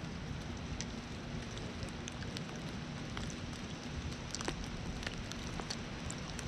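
Light rain pattering: a steady hiss with scattered small drop taps close by.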